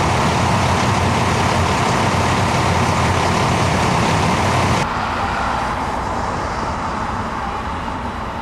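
Steady rumble of idling vehicle engines mixed with roadway noise. About five seconds in it cuts abruptly to a quieter, thinner noise with less low rumble.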